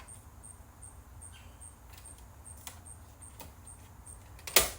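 Faint clicks of a VCR's parts being handled during disassembly, then one loud, sharp clack near the end as a part is knocked or set down.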